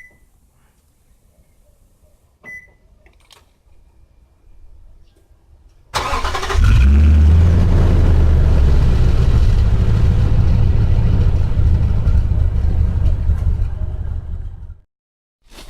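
A car engine starts about six seconds in and runs loudly with a novelty turbo-whistle exhaust insert fitted, giving a rushing hiss over the engine note instead of a turbo whistle. The sound cuts off suddenly near the end. A short beep comes about two seconds in.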